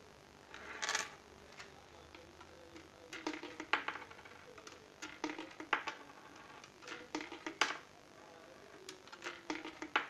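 Coins being fed one at a time into a vending box's coin-slot acceptor, each drop a short cluster of sharp clicks and rattles, about every two seconds.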